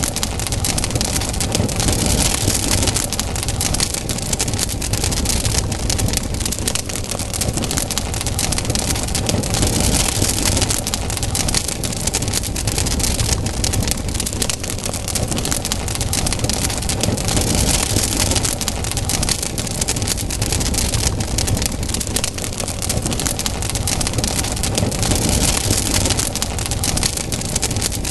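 Campfire burning, the wood crackling and popping densely over a steady low rumble; the hiss of the fire swells and fades every several seconds.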